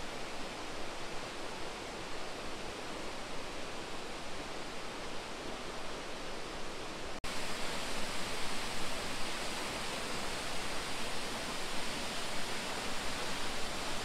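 Steady rushing noise of a tall waterfall, about 50 metres high. About halfway through it breaks off for an instant and comes back louder and hissier.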